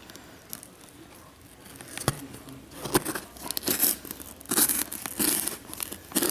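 A cardboard shipping box being torn open: a series of irregular tearing and crinkling noises, starting about two seconds in.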